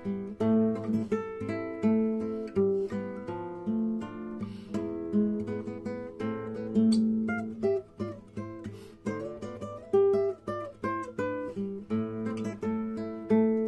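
Acoustic guitar playing an instrumental piece: plucked melody notes over chords, each note starting sharply and fading.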